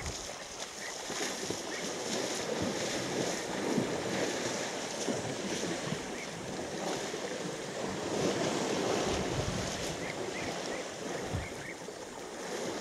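African elephants splashing and sloshing through a shallow waterhole, a steady noisy wash of water with wind buffeting the microphone. It swells a few times.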